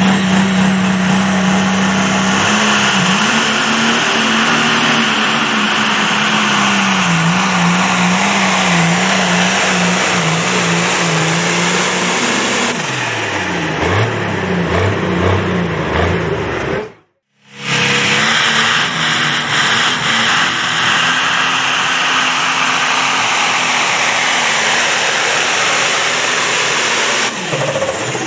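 Turbocharged diesel pulling tractors at full throttle hauling a weight-transfer sled: the first engine's pitch wavers, then falls and breaks up as the run ends. After a short silent break a second tractor, an International, runs steadily at full throttle and starts to slow near the end.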